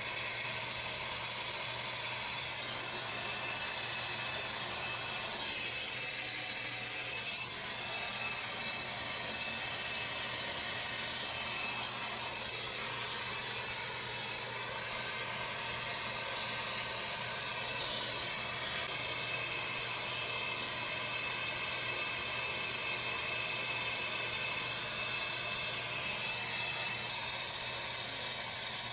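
Soldering torch flame hissing steadily while heating a copper pipe joint on a 2-inch ball valve.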